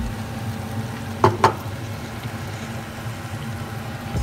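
Fettuccine, sausages and tomato sauce simmering and sizzling in a rice cooker's pot, the water mostly cooked off. Two quick knocks come close together about a second in.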